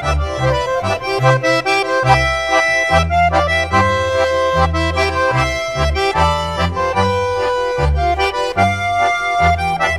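Background music: a traditional folk tune played on accordion, with held chords over a bass line.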